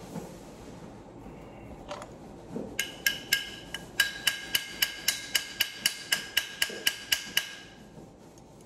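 Small hammer tapping a punch to drift a pistol night sight along the slide's dovetail: about twenty quick, light taps, roughly four a second, each with a short metallic ring. The taps start a little over two seconds in and stop near the end.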